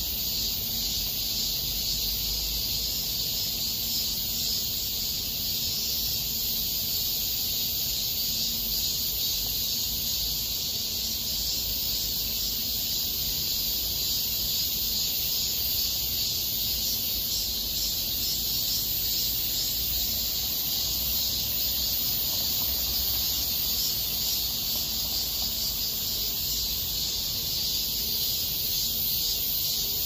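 A chorus of cicadas buzzing in a dense, steady, high-pitched drone that never lets up.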